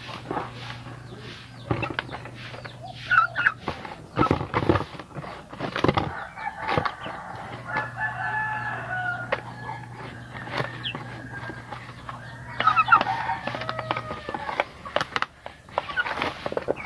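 Chickens clucking as they peck kangkong leaves from a feeding trough, with many short sharp pecking clicks. A rooster crows, with drawn-out calls about halfway through and again near the end.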